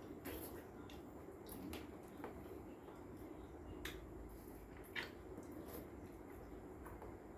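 Faint wet smacking and sucking of ripe mangoes being eaten by hand, with scattered short clicks.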